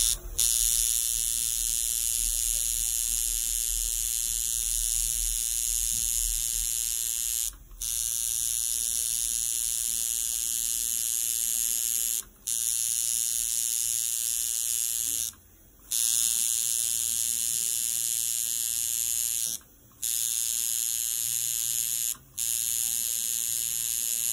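A small handheld electric tool buzzing with a steady high-pitched whine, switched off briefly five times and started again after each pause.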